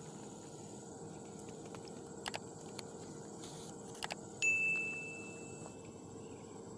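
Subscribe-button overlay sound effect: mouse clicks at about two and four seconds in, then a single bell ding just after, the loudest sound, ringing out over about a second. Under it a steady faint hum of insects.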